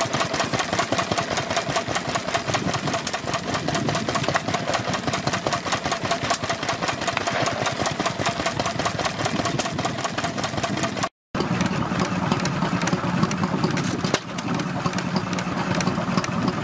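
Lister Junior single-cylinder stationary engine running with a fast, even clatter of firing strokes. After a sudden break about eleven seconds in, a different sound follows: a red Amanco stationary engine running, steadier and with a low hum.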